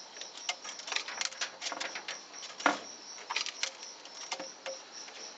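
Domestic pigeon pecking at scattered seed on a wooden ledge: irregular sharp taps and clicks, with one louder knock about two and a half seconds in.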